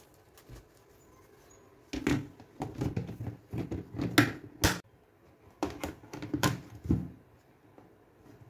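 Clear plastic storage box and lid being handled: a quick run of hard clacks and knocks about two seconds in, then a shorter run near the end.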